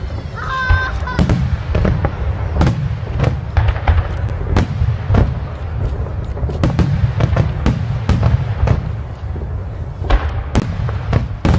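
Aerial fireworks shells bursting in quick, overlapping succession: a continuous low rumble of booms broken by many sharp cracks.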